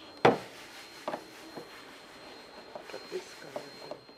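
Phillips screwdriver and loose screws clicking and tapping on a plastic kayak hull while the screws holding an acrylic hatch plate are taken out: one sharp click about a quarter of a second in, then scattered lighter clicks.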